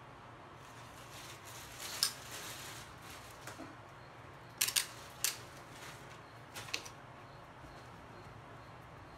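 Sharp plastic clicks and taps from a digital multimeter and its test leads being handled on a tabletop: one about two seconds in, a quick pair and another click around the middle, and a further pair a little later, over quiet room tone.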